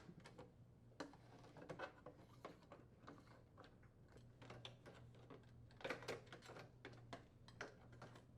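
Faint scattered clicks and taps of a putty knife working a plastic inner door trim loose from a microwave oven door, a little louder about six seconds in.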